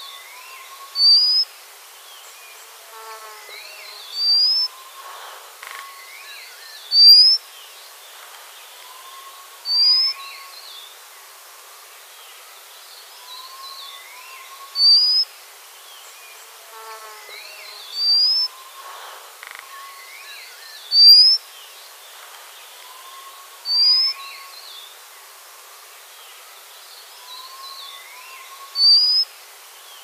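White-capped redstart giving its thin, rising whistled call nine times, a few seconds apart, over a faint background of softer chirps and insect-like buzzing.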